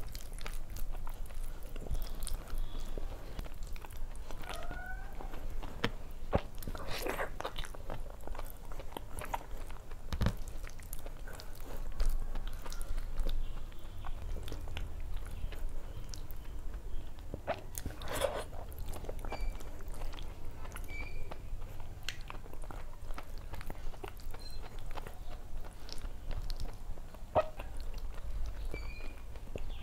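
Close-miked chewing of a mouthful of rice and fried fish, with scattered mouth clicks and smacks and the soft sound of fingers mixing rice on a plate.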